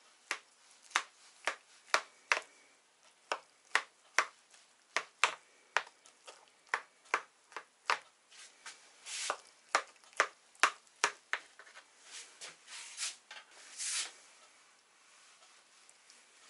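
Knife cutting a baked casserole into portions in a metal baking tin, its blade knocking and scraping against the bottom of the tin in sharp clicks about twice a second, with a few longer scrapes before the cutting stops near the end.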